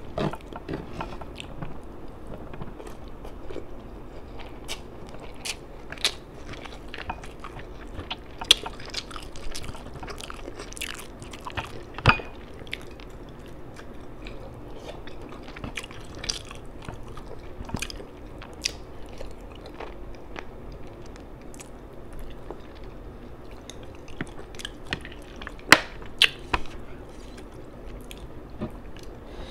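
Close-up eating sounds of a person chewing fish head and rice: wet chewing with many sharp mouth clicks and smacks, and a few louder snaps, the loudest near the end.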